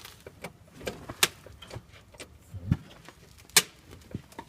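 Scattered clicks and knocks of hand tools and heavy metal parts being handled, with a sharp knock about a second in and the loudest one past three and a half seconds in.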